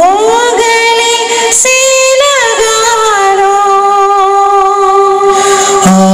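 A man singing through a handheld microphone in a high voice. He slides up into a long held note, shifts pitch twice about two seconds in, then holds a steady lower note to the end. He is imitating a well-known singer's voice.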